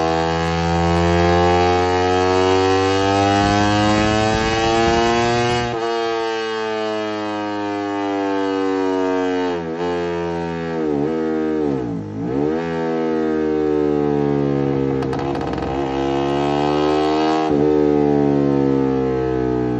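Yamaha Jupiter MP2 single-cylinder four-stroke engine with a Creampie CP2 RX racing exhaust, loud and under load on a motorcycle dyno. The revs climb slowly, drop sharply and climb again several times, as the bike is pulled through the gears on the rollers.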